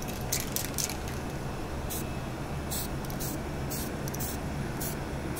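Aerosol can of anti-noise coating sprayed onto a pickup's leaf springs in short hissing bursts, about ten brief puffs at uneven intervals, a cluster of them near the start.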